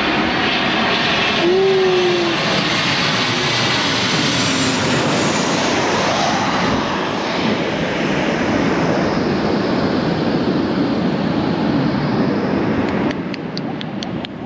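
Airliner passing low overhead, its engines loud and steady with a slowly sweeping pitch, then dropping off sharply near the end as it moves away.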